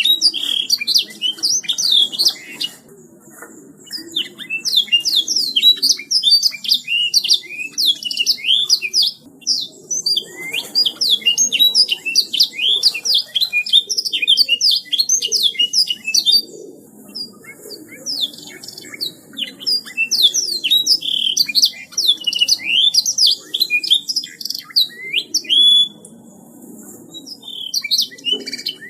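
Domestic canary singing in long, fast phrases of rapid chirps and trills, with a few short pauses between phrases.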